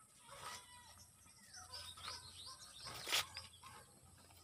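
Small birds chirping faintly in quick, short, sliding notes, with one short sharp click about three seconds in.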